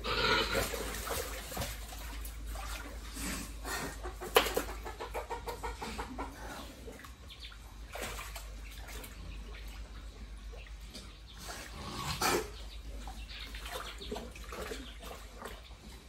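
A hen clucking in a pig pen, with water splashing as a pig moves about in the wet floor. There are a few sharper, louder sounds: one near the start, a knock about four seconds in, and another about twelve seconds in.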